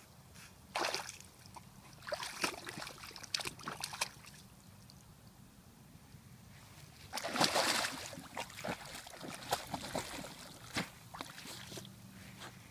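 Pond water splashing and sloshing as a small dog wades and paddles through the shallows, in irregular bursts; the loudest splashes come about a second in and again around seven seconds in.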